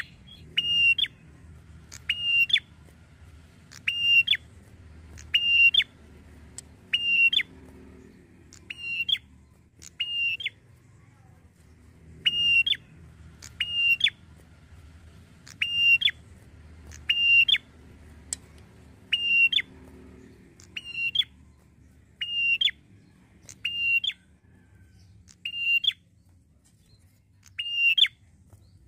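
Caged tailorbird with a rufous head calling over and over: a loud two-part call, a short clear note followed by a quick upward flick, repeated about once every one and a half seconds. It is a lure call that sets other tailorbirds responding.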